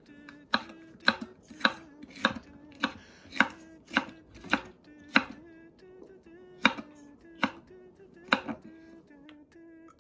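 Kitchen knife chopping a green bell pepper on a wooden cutting board: about a dozen sharp knocks, roughly two a second, with a short pause a little past the middle.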